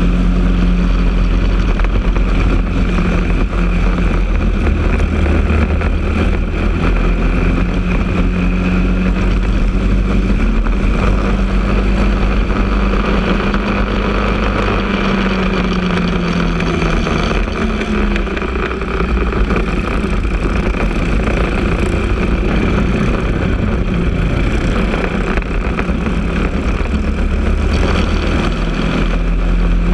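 Briggs & Stratton LO206 single-cylinder four-stroke kart engine running hard on track, heard from on board the kart over road and wind noise. The revs climb gently, drop away about two-thirds of the way through as the throttle comes off, then build again near the end.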